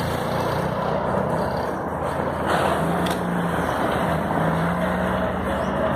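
Street noise with a motor vehicle engine running steadily.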